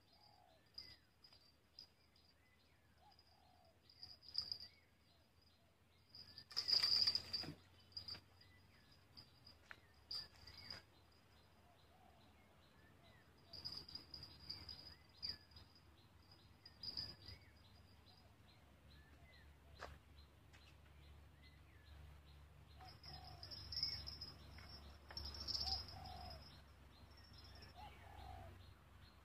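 Outdoor ambience of birds giving short chirping calls over a steady, high, pulsing insect chirr. A short burst of noise comes about seven seconds in.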